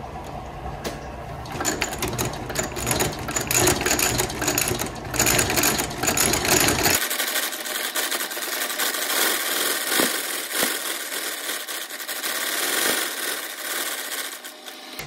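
Outsole stitching machine running, its needle and awl cycling in a rapid, steady clatter of strokes as it lockstitches a rubber boot sole to the welt. A deep hum under the clatter drops away about halfway through.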